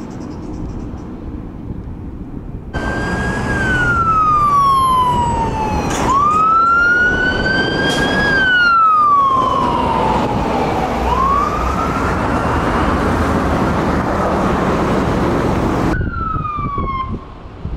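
A fire engine's siren wailing, its pitch sliding slowly down and up over a few seconds a sweep, over the truck's engine and road noise. The first few seconds hold only a heavy truck's engine and road noise before the siren cuts in abruptly.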